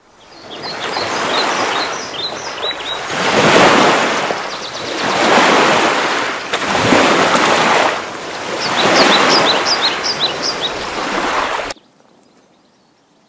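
Waves breaking and washing in, swelling and falling every second or two, with quick high bird chirps near the start and again toward the end; the whole sound cuts off abruptly shortly before the end.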